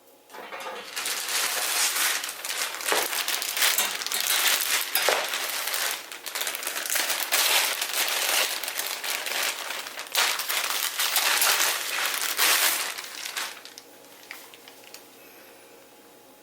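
Packaging crinkling and rustling in dense, irregular bursts, stopping about thirteen seconds in.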